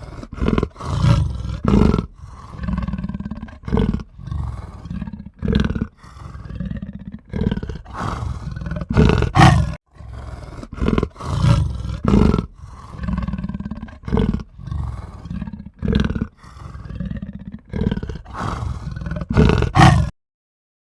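A large animal roaring over and over in a rapid series of loud calls, which stop suddenly near the end.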